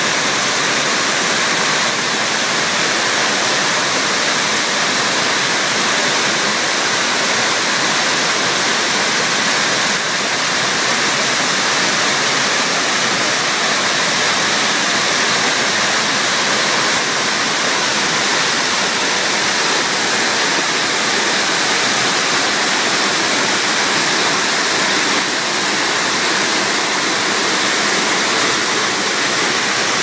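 Kaminari-daki, a 30-metre waterfall, falling onto rock: a loud, steady rush of water.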